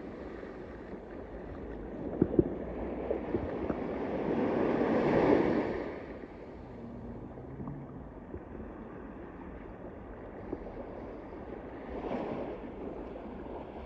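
Small waves washing up onto a sandy beach. The wash swells and fades, loudest about four to six seconds in and again near the end.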